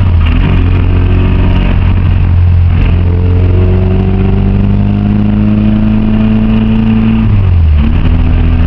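Honda H22A four-cylinder engine in a Civic pulling under load: the revs hold, climb slowly for several seconds, then drop sharply near the end and level off. The owner says the engine ran low on oil and caught a rod knock at the end of this run.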